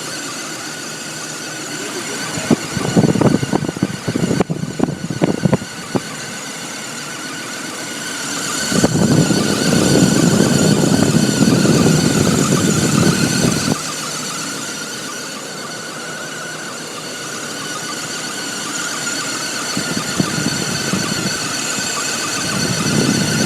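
2002 BMW 530i's 3.0-litre straight-six running just after a cold start, with a steady high-pitched whine over it. Spells of louder low rumble come and go, about three seconds in, from about nine to fourteen seconds, and again near the end. The owner does not know the cause.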